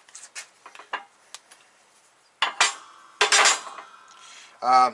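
Metal clinking and clanking as a G60 Corrado steel spindle and hub is handled and set down on a shop press's steel plate: a few light clicks, then two louder clanks, the second one ringing briefly.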